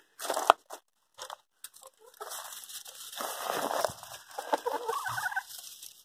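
A few short clicks, then chickens clucking from about two seconds in.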